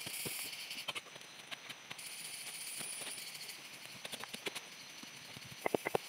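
Scattered knocks and rustles of wooden poles and bark being handled and set down among logs, with a quick cluster of sharp knocks near the end, over a steady high hiss.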